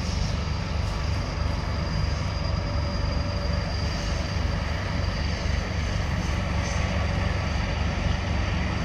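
Kirovets K-700A tractor's diesel engine working under load as the tractor drives through bog mud on a trailer recovery: a steady deep drone with a faint high whine above it.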